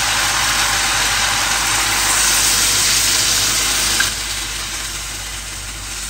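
Water poured into a hot pan of mutton browning in oil, setting off a loud, steady sizzle. It drops sharply about four seconds in and then dies down.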